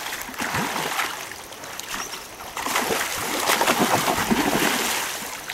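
Water splashing in bursts as a hooked fish thrashes at the surface while it is brought in, heaviest in the middle of the stretch and easing off near the end.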